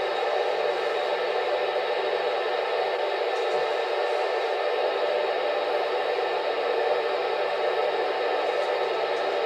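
Steady static hiss from an ICOM dual-band amateur transceiver's speaker, tuned to 145.800 MHz with the squelch open: FM receiver noise with no station coming through.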